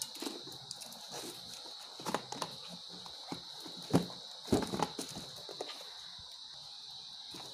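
Irregular knocks and taps of small cardboard boxes and parts being picked up and set down on a metal amplifier cabinet and table, the loudest knock about four seconds in. A steady high-pitched tone runs underneath.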